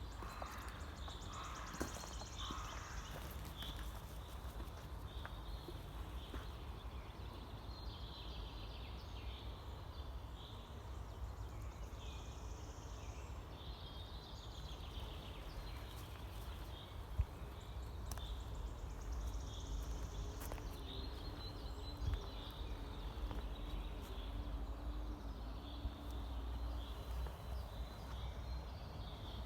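Small birds chirping in short repeated calls, with a few longer high, buzzy trills, over a steady low rumble.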